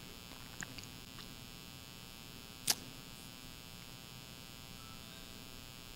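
Faint steady electrical hum and buzz, with a single short click about two and a half seconds in and a few fainter ticks in the first second.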